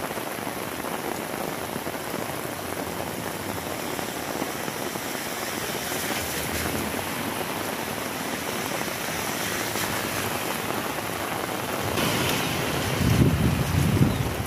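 Heavy rain falling steadily. Near the end, low buffeting of wind on the microphone comes in over it.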